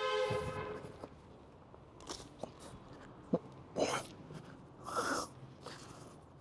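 A man breathing hard while straining through chin-ups: a short strained voiced grunt right at the start, then two forceful exhalations about four and five seconds in.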